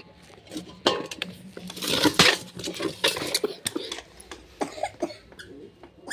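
A metal feed bowl knocking and scraping on a concrete floor as it is handled and lifted: a few sharp clanks and rattles.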